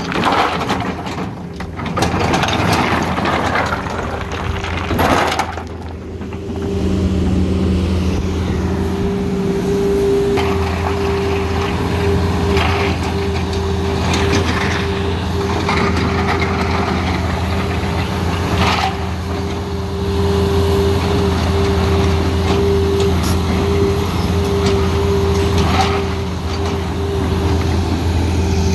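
Tata Hitachi Zaxis 220LC crawler excavator at work: the bucket scrapes and scoops river stones for the first few seconds, then the diesel engine runs at a steady hum, with a few sharp knocks along the way.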